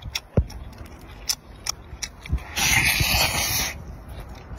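Close-miked mouth sounds of eating cooked squid: scattered wet clicks and smacks of chewing and lips, and a loud sucking hiss lasting about a second past the middle.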